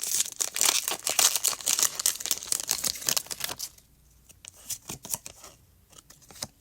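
Pokémon card booster pack's foil wrapper being torn open, with a long stretch of crinkling and ripping, then a few light rustles as the cards are handled.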